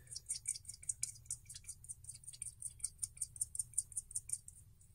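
Quick run of small, light clicks, about six or seven a second, as a long stack screw is turned by hand into a carbon-fibre quadcopter frame. The clicks stop shortly before the end.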